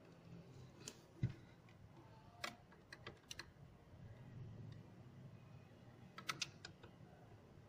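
Scattered light clicks and taps of hands handling a Bose 301 V speaker's hard plastic baffle, with one low thump about a second in and a quick double click near the end.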